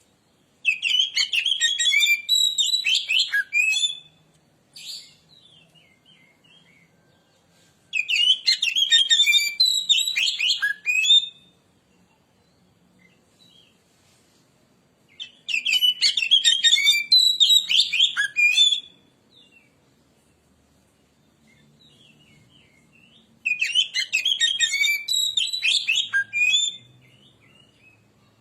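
Oriental magpie-robin (kacer) singing in four bouts of fast, varied chirps and whistles, each about three seconds long, with pauses of about four seconds between them.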